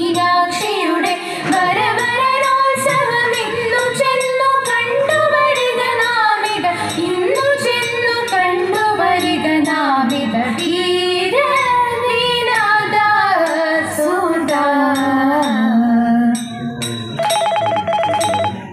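Thiruvathira song: women singing over a regular beat, accompanying the group dance. The song stops a little after 16 seconds in, followed by a short buzzing tone.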